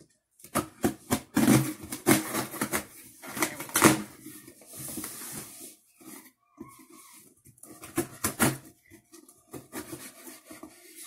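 Dull scissors working at the packing tape on a cardboard shipping box: a quick, irregular run of sharp snips, clicks and scrapes, with cardboard and tape rustling and a longer scraping rasp near the middle. The scissors are not cutting well.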